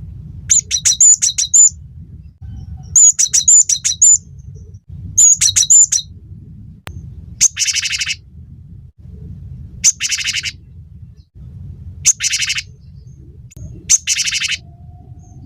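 Cinereous tit (gelatik batu) calling: three quick phrases of repeated high ringing notes, then from about halfway in, harsh buzzy calls every couple of seconds. A steady low hum runs underneath.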